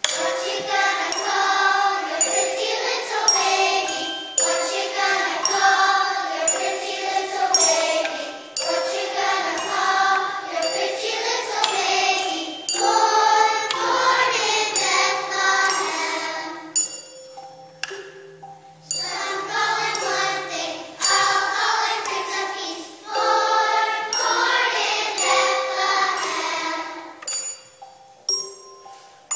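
Children's choir singing, with a held ringing tone, like a bell's, sounding under the voices in places. The singing pauses briefly a little past halfway.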